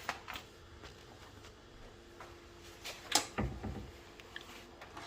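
Scattered light clicks and taps from hands-on work on the boiler, with a louder knock about three seconds in, over a faint steady hum.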